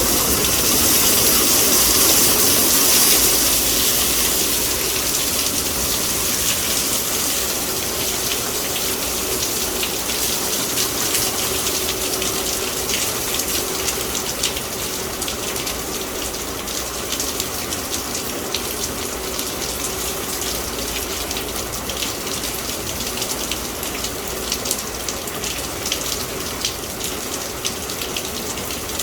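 Heavy thunderstorm rain pouring down in strong wind: a steady rushing hiss, loudest in the first few seconds and easing a little after.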